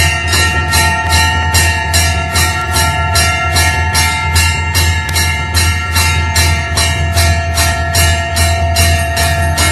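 Temple bell rung rapidly, about three strikes a second, its ringing tones carrying on between strikes over a low steady hum.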